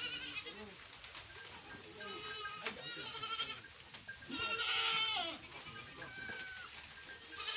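Goats bleating: several wavering calls from the herd, the loudest a little past halfway through.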